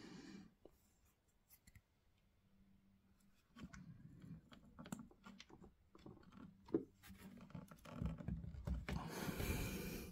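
Faint scratching and small clicks of fingers handling an N-scale model railway turnout and its track pins on a cork bed, after about three seconds of near silence. A louder rustle comes near the end.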